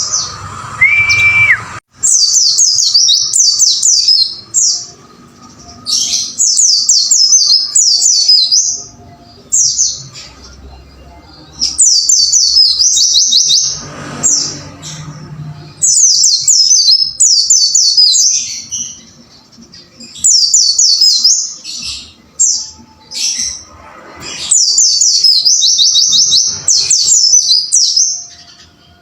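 White-eye (pleci) singing its rapid, high twittering song in repeated bursts of a second or two, with short pauses between them.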